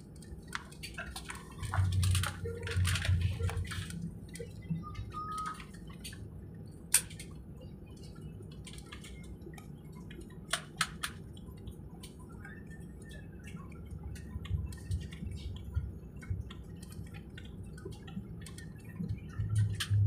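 Airliner cabin noise during taxi: a steady low hum with scattered sharp clicks and knocks, and short low rumbles about two seconds in and again near the end.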